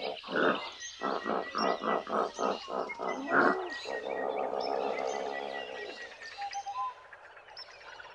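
Hippopotamus calling: a fast run of grunting honks, about five a second, ending in a louder grunt. Then a few seconds of buzzing, rumbling grunt that fades out.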